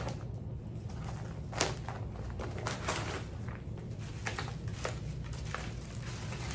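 Scattered soft rustles and light taps, like things being handled, over a steady low hum.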